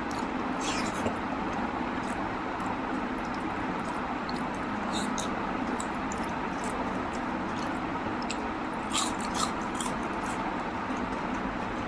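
A person chewing a mouthful of rice and mutton curry: scattered short, wet mouth clicks and smacks, with a small cluster about nine seconds in, over a steady background hiss.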